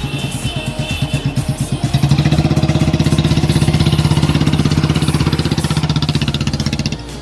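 Restored Royal Enfield Bullet 350's single-cylinder four-stroke engine running with an even, rapid beat, revved louder from about two seconds in and settling back near the end.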